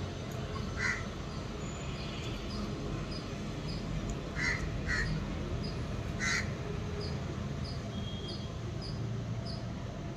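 Crow cawing four times: once about a second in, then two caws close together and a last one a little later, over steady low background noise.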